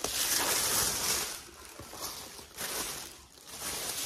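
White tissue paper and plastic wrapping crinkling and rustling as a handbag is pulled out of them, in two bouts, the louder one in the first second or so.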